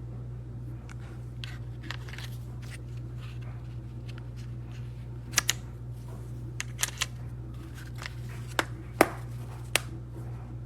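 Small plastic utensils and their case being handled, giving scattered light clicks and taps that are sharpest and most frequent in the second half, over a steady low hum.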